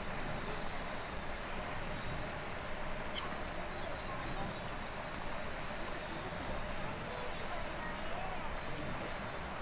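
A steady, high-pitched drone of summer cicadas that does not let up, with faint distant human voices beneath it.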